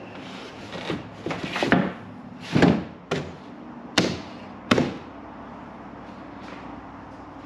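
Rear seat of a 1970 VW Beetle being fitted into the car: a patter of knocks as the backrest goes in, then four sharp thumps as the seat is pushed into position.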